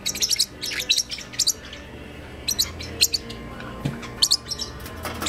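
Parrotlets chirping: short, high chirps in quick clusters of two or three, coming every second or so.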